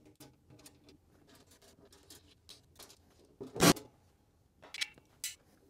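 Small clicks and rattles as screws and the sheet-metal access panel are taken off the base of a Hammer A3-41 jointer-planer, with one sharp knock about three and a half seconds in and two quick clicks after it.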